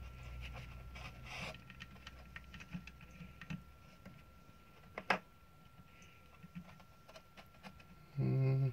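Faint rustling and small clicks of gloved hands handling the carbon brush and small plastic and metal parts of an electric shower's pump motor as the brush is slid back into its holder, with one sharp click about five seconds in. A brief low hum near the end is the loudest sound.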